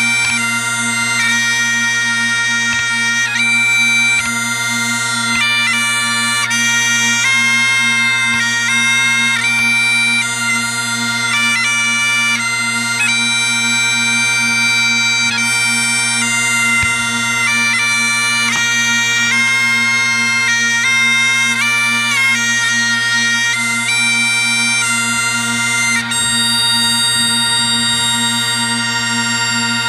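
Great Highland bagpipe playing a tune: the chanter's melody, with many quick grace notes, over the steady hum of the drones.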